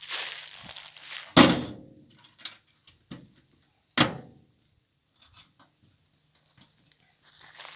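Two heavy knocks with a short ringing tail, about a second and a half in and again at four seconds: the machine's front access door being handled and banged shut, with a few light clicks around it.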